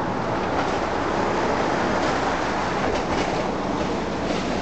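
Demolition excavator running steadily as its hydraulic crusher jaws chew through brick and concrete, with crunching and clatter of rubble, a few sharper crunches about three and four seconds in.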